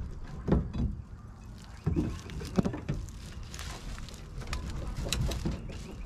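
A hammer knocking a prying tool against the plywood brooder wall, several irregular sharp knocks as he tries to work the nailed joint loose.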